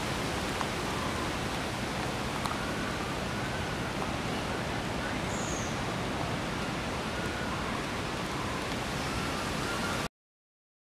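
Steady, even hiss of outdoor background noise, with a few faint arched chirping calls in the first half. It cuts off suddenly to silence just before the end.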